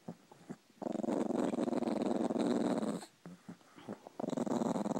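Chihuahua growling: one long growl of about two seconds starting about a second in, then a second growl starting near the end.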